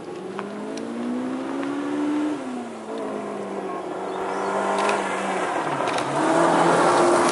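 Car engine revving as it approaches: the pitch climbs for about two seconds, drops back, then rises again and gets louder near the end.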